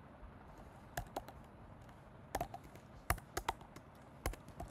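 Computer keyboard typing: a dozen or so sharp keystrokes in short clusters, with pauses between them.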